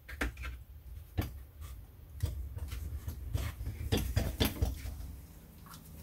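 Scattered light clicks and taps over a low rumble: handling noise from a handheld camera being moved around.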